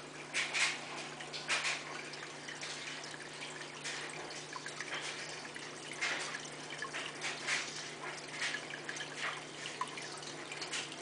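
Aquarium filter water splashing and dripping irregularly at the tank's surface, with a low steady hum underneath.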